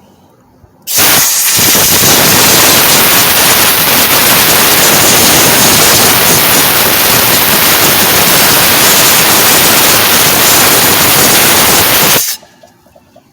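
Compressed air from a small oil-free air compressor's blow nozzle hissing in one long, loud blast, starting about a second in and cutting off near the end, blowing dust out of a shaded-pole fan motor.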